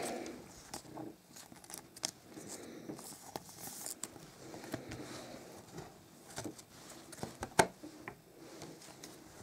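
Trading cards being handled in the hands: quiet sliding and rustling of the card stock, with a few sharp clicks and taps as cards are shuffled and set down on a table stack.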